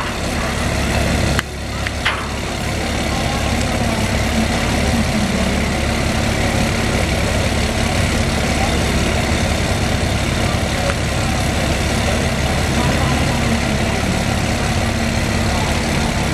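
Tracked armoured vehicle's engine idling steadily, a low even hum, with a couple of short clicks near the start.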